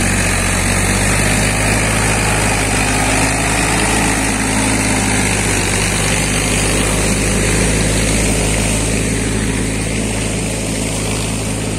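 A tractor engine running steadily at an even speed, a constant low hum.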